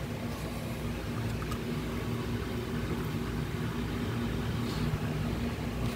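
Steady low background hum and rumble with a constant tone, unchanging throughout.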